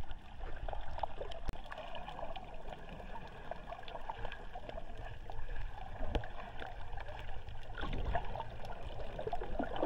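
Underwater ambience picked up by a camera held just below the surface: water gurgling and sloshing around it, with scattered small clicks and crackles.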